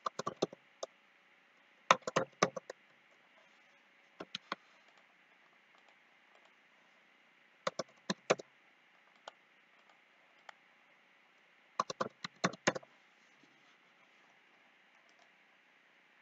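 Computer keyboard typing and mouse clicks, in short clusters of several quick clicks a few seconds apart, with single clicks between.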